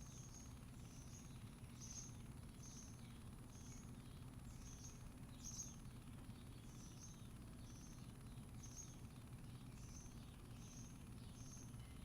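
A small bird chirping over and over in short, high, evenly spaced notes, about one and a half a second, over a low steady background rumble and a faint steady high whine.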